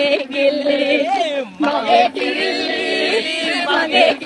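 A song sung by several voices together, with brief breaks in the singing.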